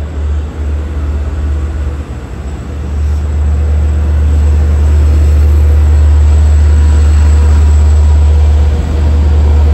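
Long Island Rail Road bi-level diesel coach train pulling out and rolling past close by, a deep rumble that builds about three seconds in and then stays loud and steady.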